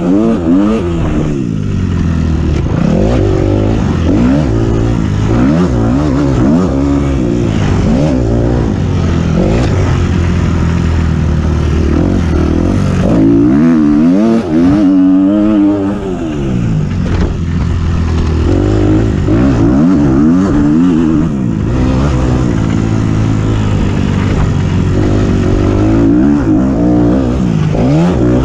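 Four-stroke single-cylinder motocross bike engine being ridden hard, its pitch repeatedly climbing and dropping back as the throttle is opened and closed.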